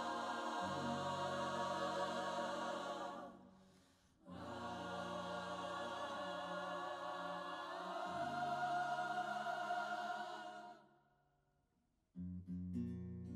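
A choir of women singing together in long held notes. The singing breaks off briefly about three seconds in and fades out near eleven seconds, and acoustic guitar strumming starts near the end.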